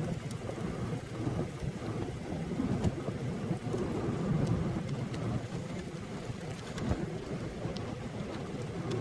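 Thunderstorm noise of rain and wind: a steady low rumble with scattered light ticks.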